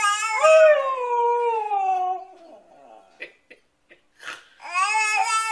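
Husky-type dog 'talking': a long, wavering howl-like call that slides down in pitch and trails off about two seconds in, then a pause, then another drawn-out call starting near the end.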